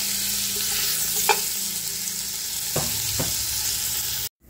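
Rib pieces sizzling in hot oil in an aluminium pressure cooker as they are seared brown, with three short knocks of a utensil against the pot as pieces are lifted out. The sound cuts off suddenly near the end.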